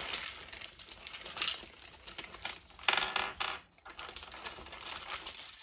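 Hands rummaging through small gun parts and their packaging on a workbench: scattered clicks and clatter of small hard pieces, with a louder rustling burst about three seconds in.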